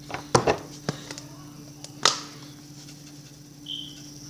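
A few sharp clicks and taps of kitchen dishes and utensils being handled, with the loudest knock about two seconds in and a brief high squeak near the end, over a steady low appliance hum.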